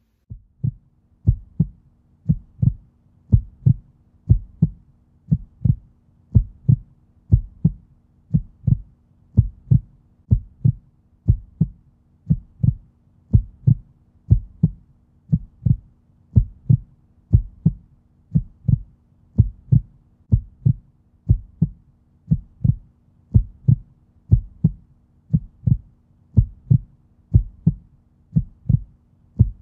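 Heartbeat sound effect: a steady double thump, lub-dub, about once a second, over a faint steady low hum.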